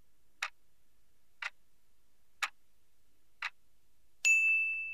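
Quiz countdown timer sound effect: a clock ticking once a second, four ticks, then a bright ringing ding about four seconds in that marks the end of the answer time.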